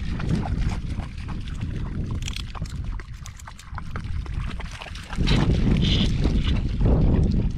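Wind buffeting the microphone in a low rumble that eases for a couple of seconds in the middle and comes back strongly. Over it come scattered small clicks and crackles of cooked mud crab shell being cracked and picked apart by hand.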